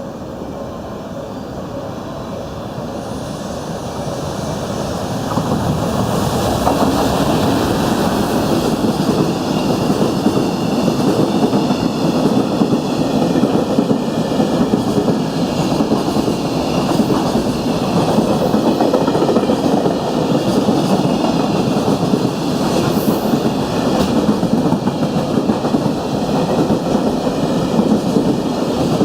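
Freight train hauled by an EF210 electric locomotive passing through a station at speed: the rumble grows over the first five seconds, then the wagons run past steadily, with rhythmic clickety-clack of wheels over the rail joints.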